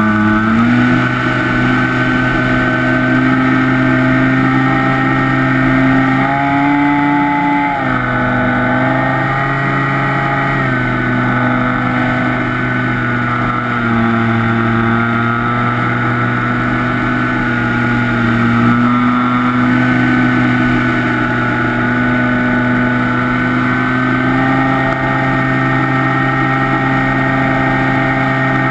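Electric motor and propeller of a Skywalker FPV model plane, heard from its onboard camera: a steady buzzing whine whose pitch rises about six seconds in, drops back about eight seconds in, and shifts a little again with the throttle later on.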